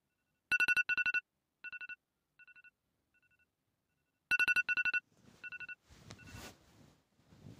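Electronic alarm beeping: a rapid run of loud high beeps about half a second in and again about four seconds in, each followed by fainter repeats that die away. Then bedding rustles as the sleeper stirs under the covers.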